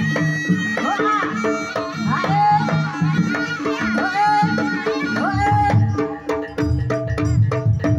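Live East Javanese jaranan music: a slompret (shawm) playing a bending, sliding melody over kendang drumming and steady gong tones. About six seconds in the reed melody drops out and heavier, lower drumming takes over.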